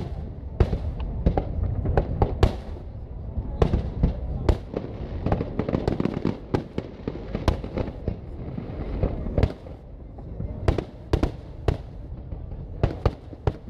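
Aerial fireworks shells bursting in quick, irregular succession: sharp bangs over a continuous low rumble, with a brief lull about nine and a half seconds in.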